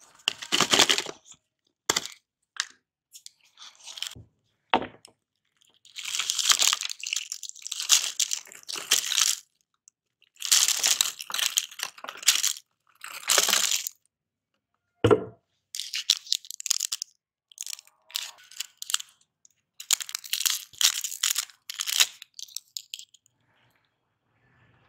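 Crinkly plastic lollipop wrappers rustling in several loud bursts as wrapped lollipops are handled in a plastic jar and tipped out onto a plastic tray. There is a single sharp knock a little past halfway. Later bursts are a wrapper crinkling as a lollipop is unwrapped.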